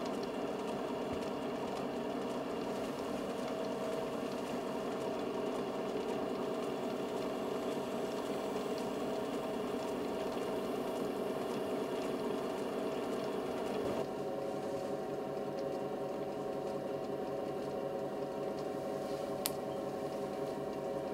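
Electric potter's wheel running at a steady speed, its motor giving a continuous hum as clay cups are thrown off the hump; the hum shifts slightly about two-thirds of the way through, and there is a single sharp click near the end.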